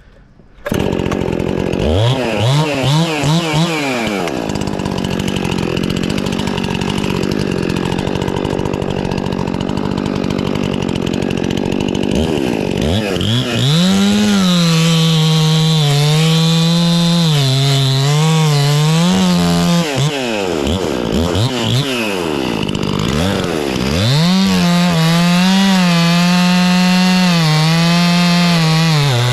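Gas chainsaw starting suddenly about a second in, revving up and back down, then running at high revs in two long stretches with its pitch wavering, dropping off sharply twice in between.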